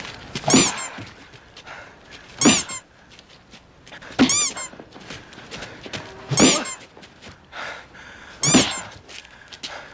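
A dubbed-in comedy sound effect repeated five times, about two seconds apart: each is a thump with a high, wavering squeak on top.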